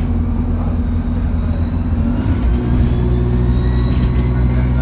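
Alexander Dennis Enviro200 bus engine running. Just past halfway the engine note changes and it pulls harder, with a high turbo whine climbing steadily in pitch as the bus accelerates.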